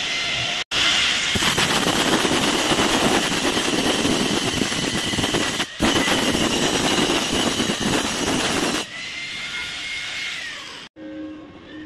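Angle grinder with an abrasive disc grinding down a welded joint on a steel square-tube frame: a loud, steady high whine with a grinding hiss. Near the end the grinding eases off and the disc's whine drops lower and quieter.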